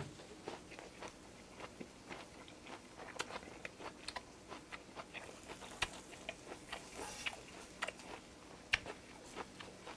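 A person chewing a mouthful of grilled pork wrapped in raw onion, close to the microphone: soft, irregular wet clicks and small crunches.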